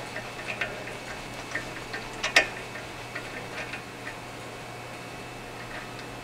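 Light, scattered metallic clicks and ticks as a Time-Sert installation driver tool in a hand tap handle is turned back out of a freshly installed thread repair insert in an aluminum engine block. The sharpest click comes about two seconds in, and the clicks thin out in the second half.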